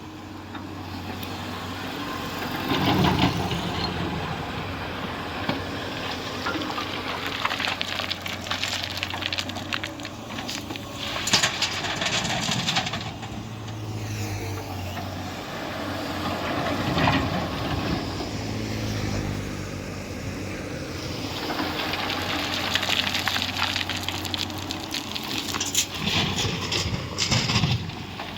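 Excavator engine running with a steady low hum, with irregular louder bursts of noise on top as the machine works.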